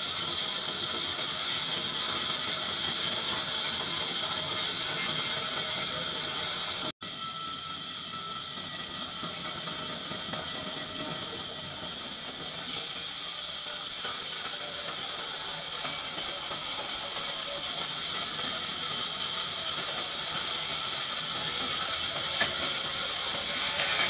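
Large band sawmill running with a steady hissing whir as its blade saws lengthwise through a log. The sound cuts out for an instant about 7 seconds in.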